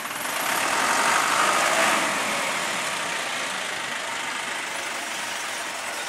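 Isuzu NPR garbage truck's diesel engine running as the truck moves along, swelling about a second in, then steady.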